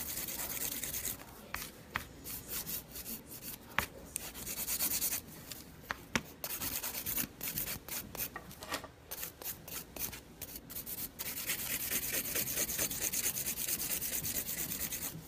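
Hand nail file rasping over a gel-coated fingernail in quick, repeated back-and-forth strokes, with a few sharper ticks: finish-filing the gel to smooth out a small bump.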